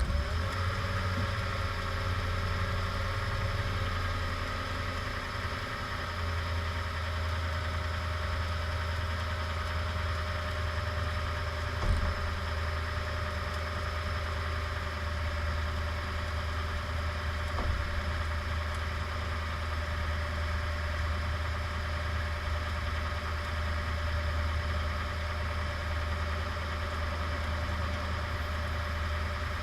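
Toyota Tundra pickup engine idling steadily, with two short sharp pops about six seconds apart near the middle. These are likely the intermittent popping noise that shows up mainly after the truck has been parked for a while.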